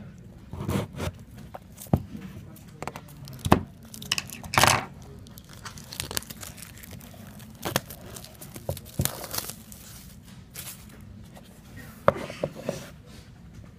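Clear plastic shrink wrap being slit and torn off a small cardboard box, crinkling and crackling in irregular bursts with sharp ticks, loudest about three and a half to five seconds in and again near the end.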